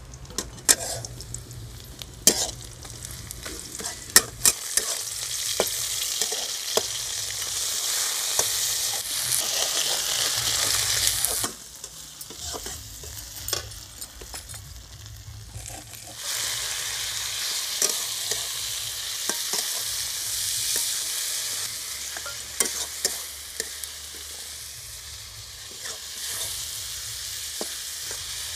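Food sizzling in hot oil in a steel kadai, with a metal spatula scraping and clinking against the pan as it is stirred. The sizzle drops low about eleven seconds in and picks up again about five seconds later.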